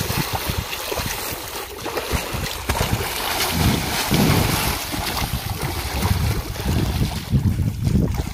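Water sloshing and splashing in a small concrete tank as a bather comes up from under the water and moves about, with wind buffeting the microphone.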